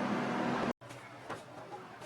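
DIY 3D printer running: a steady motor and fan hum that cuts off abruptly a little under a second in, then a quieter stretch with a few faint clicks.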